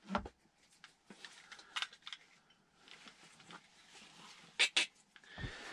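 Handling noise from a small bag and its strap: scattered light clicks, knocks and fabric rustle, with two sharp clicks close together about four and a half seconds in.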